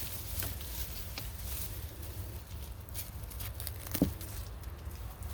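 Hands pulling apart a clump of orange daylily tubers and roots: scattered small crackles and rustles of roots and soil, with one louder thump about four seconds in.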